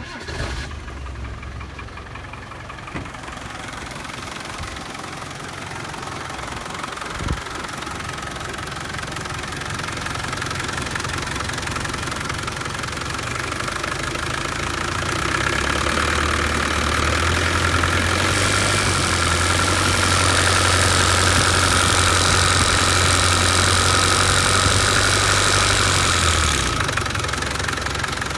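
Land Rover Defender 300Tdi four-cylinder turbodiesel running with a rattling, ticking sound that the owner finds strange. About fifteen seconds in the engine speed rises and holds for about ten seconds, then drops back to idle near the end.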